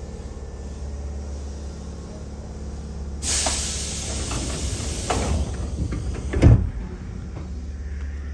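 Commuter train's sliding passenger doors closing at a station stop: a sudden hiss of air about three seconds in, then a loud thump as the doors shut. A steady low hum from the standing train runs underneath.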